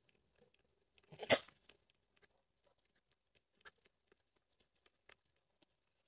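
A goat giving one short call about a second in, followed by faint scattered taps.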